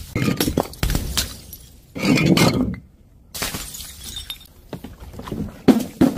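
A quick run of sharp crashes and breaking sounds as objects are smashed, with glass shattering among them. The loudest burst comes about two seconds in, followed by a short lull and then more crashes.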